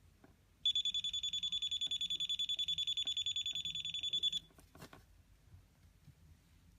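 A high-pitched electronic piezo buzzer sounds for nearly four seconds as a rapidly pulsing tone, then cuts off suddenly; a single click follows.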